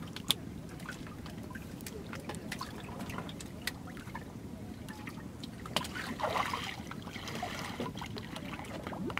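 Water trickling and sloshing around a man swimming beside a wooden boat, with small drips and clicks and a louder splash about six seconds in.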